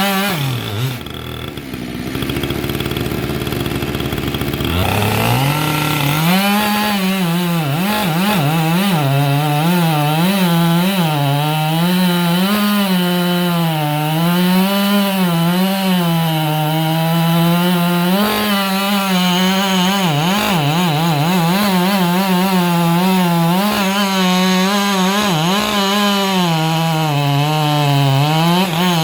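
Chainsaw cutting through a large log round at high throttle, its pitch wavering up and down as the chain loads in the cut. It runs lower for the first few seconds, then climbs to full speed about five seconds in.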